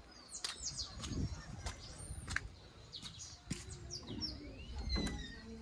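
Several birds chirping and whistling: many short, quick high notes and sweeping calls, with a few faint clicks.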